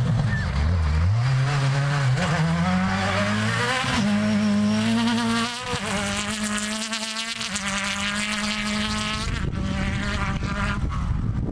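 Off-road rally prototype's engine revving hard as it races across the stage, its pitch dropping and climbing through gear changes and lifts, then holding a steady high note as the car pulls away. The engine note dies away about ten seconds in.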